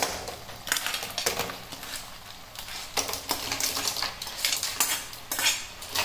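A metal spoon stirring and scraping in a pan of frying ghee-roast masala, with irregular clinks and scrapes against the pan.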